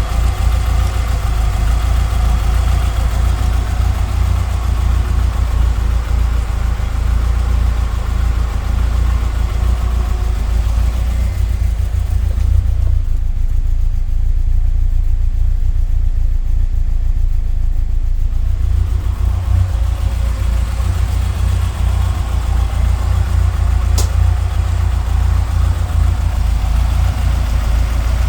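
Ford Escort Mk1 engine idling steadily, at running temperature. A higher rushing layer fades out for several seconds in the middle and then returns. A single sharp click comes near the end.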